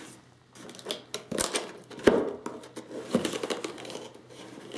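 Cardboard box being handled: irregular taps, clicks and scrapes as fingers pick at its top flap to open it, the sharpest about two seconds in.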